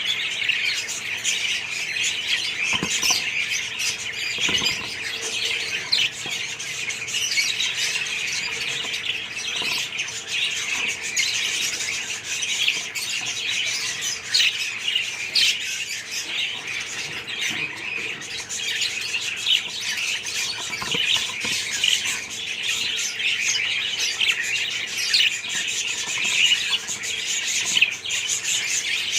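A flock of budgerigars in a colony chattering: a dense, continuous mass of overlapping chirps and squawks.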